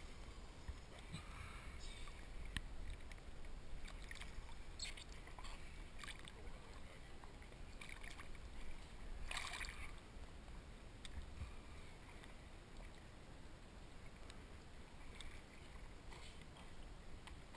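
Small waves lapping and sloshing at the sea surface close to the microphone, with short splashes now and then over a steady low rumble.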